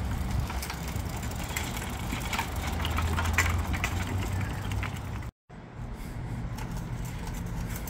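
Engine hoist rolling across asphalt with a transfer case hanging from its chain: casters rumbling and small clinks and rattles from the chain and load, over a steady low hum. The sound drops out completely for a moment about five seconds in.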